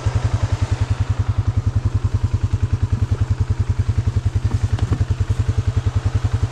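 Polaris Sportsman 570's single-cylinder engine idling steadily, an even low putter of about ten to twelve beats a second.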